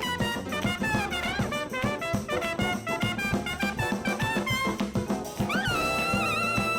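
Jazzy instrumental background music: a quick run of melody notes over drums, moving into one long held note about five and a half seconds in.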